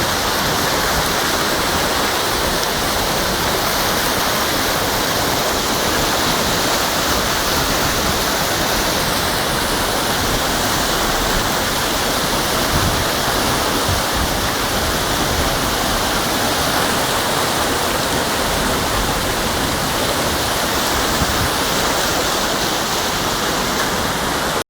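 Flash floodwater rushing down a street, a steady, unbroken wash of fast-moving water.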